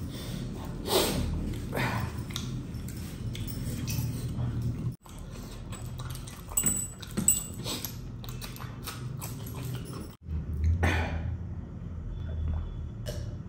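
Close-up eating sounds of a man eating fish masala by hand: chewing, lip-smacking and sucking, with a few louder smacks.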